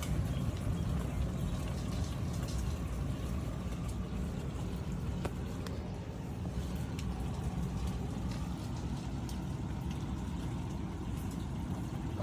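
Thunderstorm: a steady low rumble of thunder under the hiss of rain, with a few faint clicks.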